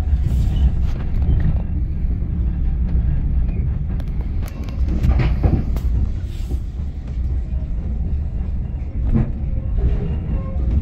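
Heritage steam railway carriage pulling slowly out of a station, heard from inside: a steady low rumble, with a few clicks and knocks about halfway through.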